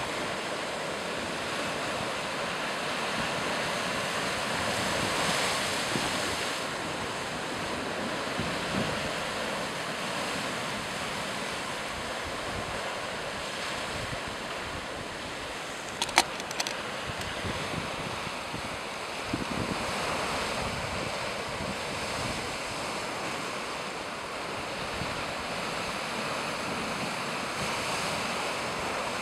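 Small waves washing onto a sandy beach and around limestone rocks: a steady surf wash, with some wind. A single sharp click about halfway through.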